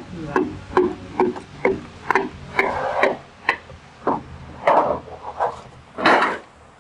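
Hand wrench working a fitting on the side of a bare Hyundai D6DA six-cylinder diesel engine block: a run of sharp metallic clicks about two or three a second, then a few louder, longer scraping clanks about three, five and six seconds in.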